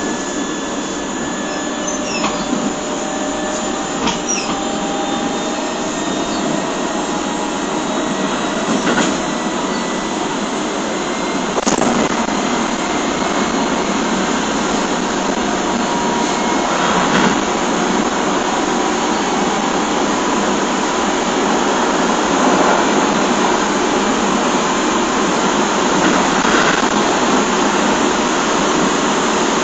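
Keio 7000 series electric train with field-chopper control running and slowly gathering speed: traction motor hum with faint steady whines and wheel-and-rail noise, heard from inside the car. Now and then a sharp knock passes as the wheels cross rail joints.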